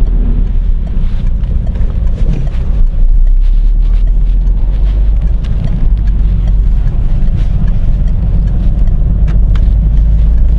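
Car driving on wet roads, heard from inside the cabin: a steady low rumble of engine and tyres, with a few faint clicks scattered through it.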